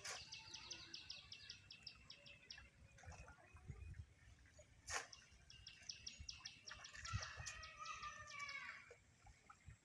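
Faint bird calls: two runs of quick, evenly repeated high chirps, the first at the start and the second from about six to nine seconds in. A single sharp snap comes about five seconds in.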